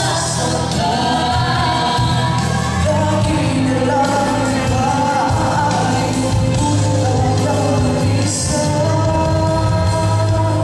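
Vocal duet sung into microphones over amplified backing music.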